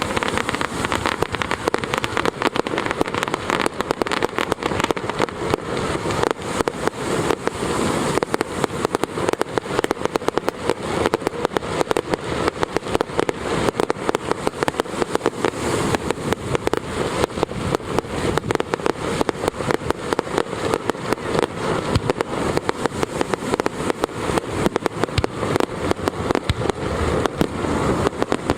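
Fireworks going off in a dense, unbroken barrage of rapid bangs and crackles, many per second.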